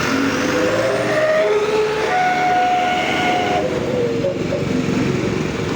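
Heavy vehicle running with a steady rumble, and a horn-like tone held for about a second and a half about two seconds in.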